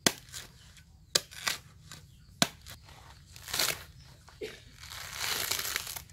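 A large knife blade strikes a coconut husk three times, sharp knocks about a second apart. Then the fibrous husk is torn and pulled away by hand, with a longer ripping sound near the end.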